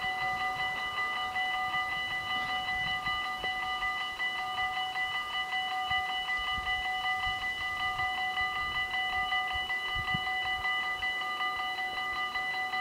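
Dutch AHOB level-crossing warning bells ringing without a break in rapid repeated strikes, a bright ringing of several tones. This is the signal that the crossing is closed for an approaching train.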